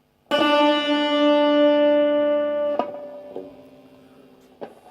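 Electric guitar played through a Whirly Bird phaser pedal in fade-out mode: a single note is struck and rings for about two and a half seconds. Then it is cut off, and a quieter note dies away. The phasing is set to fade as the note sustains and leave it clean.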